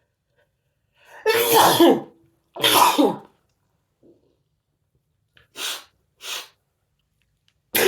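A person sneezing twice in quick succession, two loud voiced sneezes about a second and a half apart, followed a couple of seconds later by two short, quieter breathy sounds.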